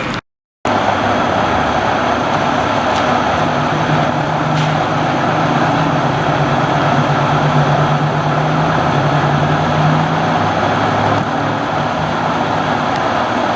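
A motor vehicle running steadily, a low engine hum under a loud rushing noise, starting just after a brief cut.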